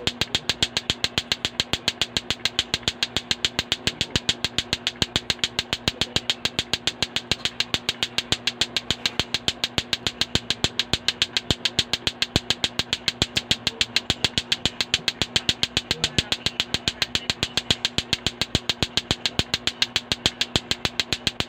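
Lato-lato (clackers): two hard plastic balls on a string swung up and down, clacking together in an unbroken, even rhythm of about four clacks a second. A steady low hum runs underneath.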